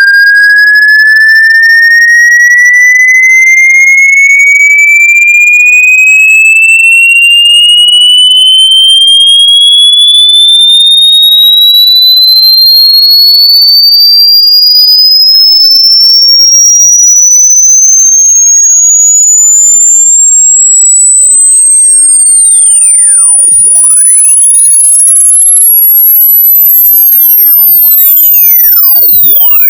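Speaker-cleaning sweep tone, meant to shake water and dust out of a speaker: a loud electronic pure tone gliding steadily upward from a high whistle to a piercing very high pitch, with fainter overtones, cutting off at the end.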